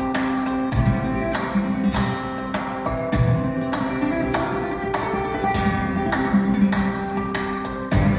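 Instrumental music with plucked guitar and a steady percussion beat, played back through a pair of KEF LS50 Meta bookshelf speakers.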